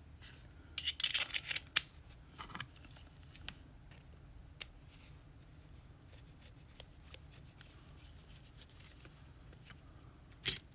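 Small metal clicks and scrapes from handling the parts and tools of a pin-tumbler lock being taken apart, with a brief cluster about a second in, scattered single clicks after it, and two more clicks near the end.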